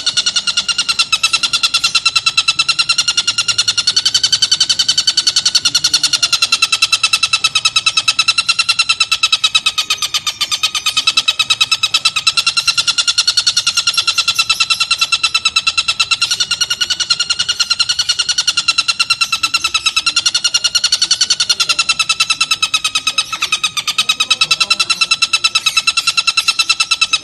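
Oriental dollarbird (tengkek buto) calling: a harsh rattle of very fast pulses at a steady pitch that wavers slightly, kept up without a break.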